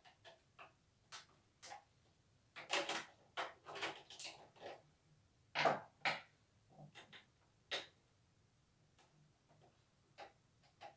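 Irregular clicks and knocks of a portable computerised embroidery machine being handled and worked on by hand, with a cluster of louder knocks in the middle.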